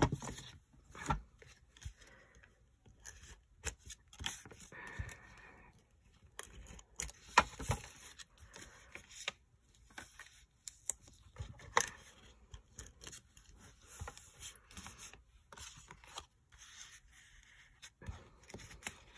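White card-stock envelope being folded along its score lines and pressed flat by hand: scattered paper rustles, scrapes and a few sharp taps, then a card being slid into it near the end.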